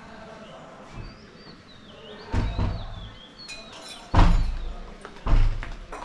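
Three heavy, dull thumps, the first a little over two seconds in and the others about a second or two apart, with faint bird chirps before them.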